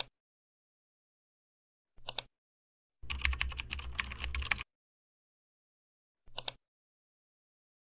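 Computer mouse clicks and a short burst of keyboard typing: a quick double-tick click at the start and another about two seconds in, about a second and a half of rapid key typing starting around three seconds, then one more click a little past six seconds.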